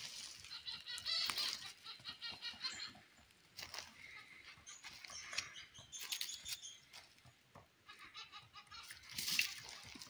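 Magellanic woodpeckers calling in repeated bursts of high, squeaky, rapidly pulsed calls, loudest about a second in and near the end, with short scattered clicks between.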